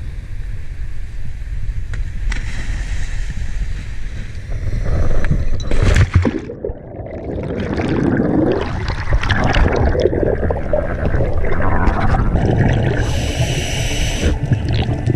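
Wind and sea hiss at a boat's edge, then a loud splash about six seconds in as a scuba diver and the camera drop into the water. After it comes muffled underwater churning of bubbles.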